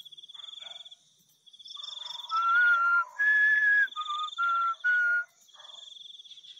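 A person whistling a short phrase of five held notes, each fairly steady in pitch and a little breathy, starting about two seconds in and stopping after about three seconds. Crickets trill steadily behind it.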